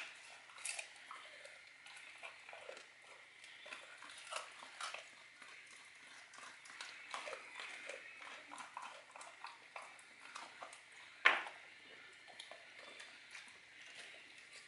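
Dog chewing and licking raw food off a wooden floor: a run of small wet clicks and crunches, with one louder knock about eleven seconds in.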